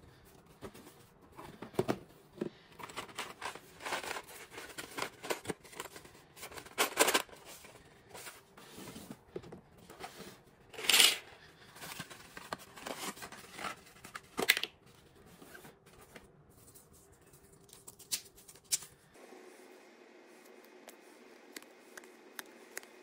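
Paper and cardboard being handled and torn while a board game is unpacked: irregular rustling and crinkling with a few louder rips, the loudest about eleven seconds in. It becomes much quieter for the last few seconds.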